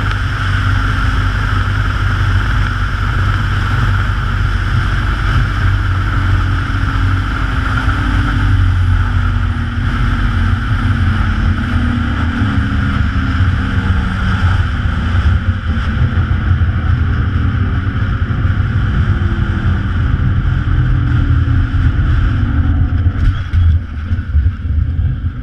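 Wind buffeting the camera microphone at high speed on a long zip wire, with the trolley's pulleys running along the steel cable. A low hum slowly falls in pitch as the ride slows toward the landing, and there are a couple of knocks near the end.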